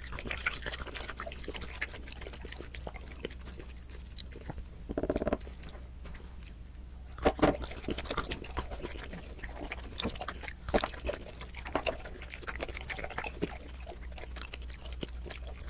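Close-up biting and chewing of chocolate tools painted to look like metal: sharp cracks as pieces snap off between the teeth, then crunching, with a steady low hum underneath.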